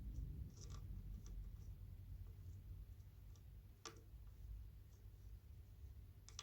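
Faint scattered clicks and taps from handling ceiling fan parts and screws during reassembly, with one sharper click about four seconds in, over a low hum.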